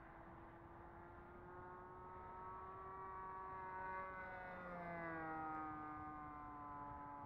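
O.S. .95 nitro glow engine of an RC airplane in flight, a steady buzz that grows louder as the plane passes. Its pitch rises slightly, then drops about four to five seconds in as it goes by.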